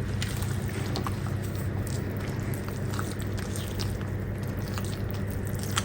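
Wet carrot cake batter being folded and stirred in a bowl with a spatula: soft squelching with small scattered clicks, over a steady low hum.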